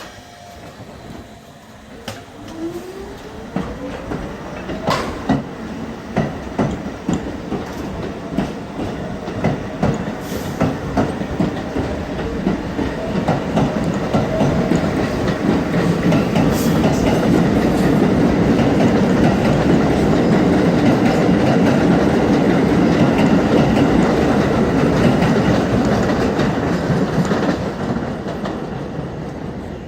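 New York City subway train running on the tracks: a rising motor whine in the first few seconds, then repeated clicks of the wheels over rail joints, building to a steady loud rumble that eases off near the end.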